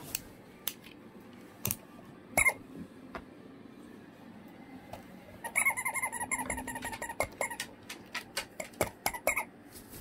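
Cockatoo at play: a few sharp taps, then a wavering squeak lasting about a second and a half about five seconds in, followed by a quick run of clicks and taps.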